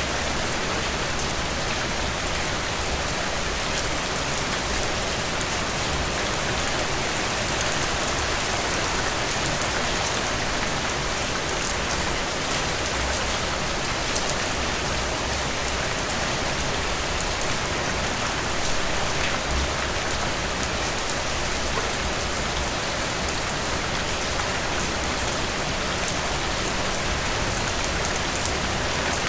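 Steady heavy rain falling on a surface, a constant rushing hiss dense with fine drip and drop patter.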